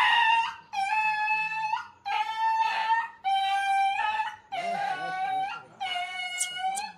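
Injured puppy crying in pain: about six long, high-pitched whining cries in a row, each lasting about a second and held at a steady pitch, while its fractured leg is bound tightly for a plaster cast.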